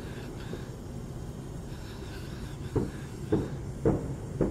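A run of sharp, dull thuds, evenly spaced about two a second, starting a little past halfway. Before them there is a quieter stretch with faint high whistling tones.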